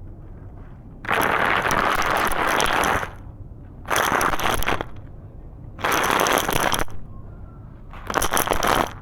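Crumbly black concrete being crushed and breaking apart, in four bursts of crunching and crackling, the first and longest lasting about two seconds.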